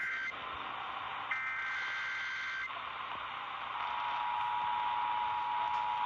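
Emergency Alert System test received on an AM portable radio's speaker over hiss. A screechy digital header burst ends just after the start, and a second one runs from about a second in for over a second. Then, nearly four seconds in, the steady two-tone attention signal begins and holds.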